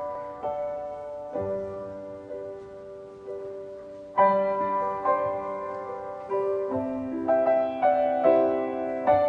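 Grand piano playing a slow solo introduction, sustained chords struck about once a second, louder and fuller from about four seconds in.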